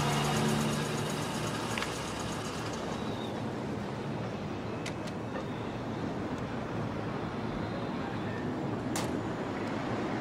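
Steady street traffic noise, with a few short sharp clicks, the clearest about nine seconds in. A low hum fades out within the first second.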